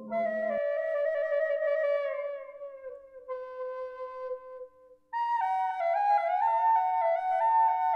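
Flute music on the soundtrack, playing a slow line that slides downward and fades out about halfway through, then a quicker stepping melody from about five seconds in. A lower background layer cuts off suddenly just after the start.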